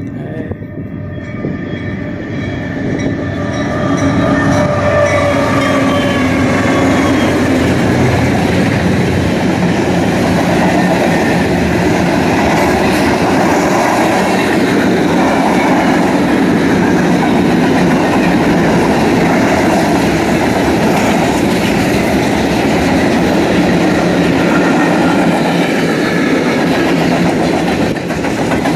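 Freight train passing: the diesel locomotives grow louder as they approach over the first few seconds. A long string of tank cars, hoppers and boxcars then rolls past close by, with a steady rumble of steel wheels on the rails.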